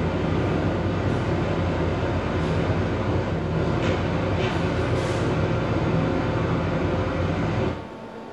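Loud, steady rumbling drone from a sound installation, with a low hum under it. It cuts off suddenly near the end, leaving a quieter hum.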